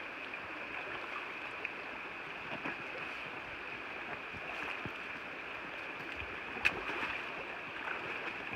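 Small rocky creek running steadily, with one sharp click about two-thirds of the way through.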